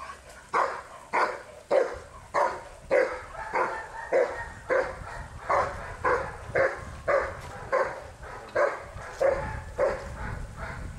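A 16-month-old dog on a leash barking at the helper in protection-work foundation training: a steady, regular series of loud barks, about two a second. The barking breaks off shortly before the end.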